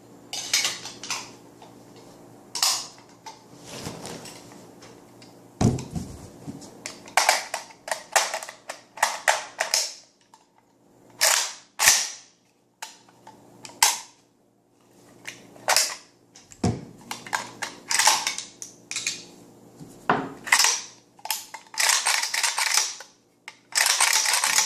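Metal parts of a Yugoslav-made AK rifle clicking, clacking and scraping as the rifle is reassembled by hand, each sharp clack a part being seated. Near the end comes a quicker run of clattering clacks.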